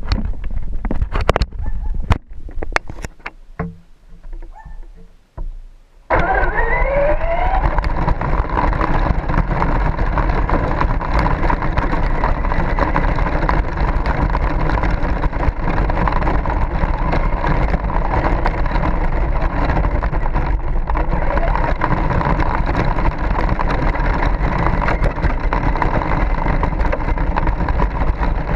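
Sharp clicks and knocks for the first few seconds, then, about six seconds in, a Traxxas Slash 2WD RC truck's Velineon brushless motor whines up as it accelerates and settles into a loud, steady drone of motor, drivetrain and tyres on the road, heard from a camera mounted on the truck.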